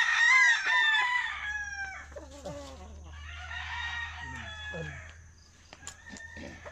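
Rooster crowing loudly, then crowing again more softly a couple of seconds later, with lower calls in between.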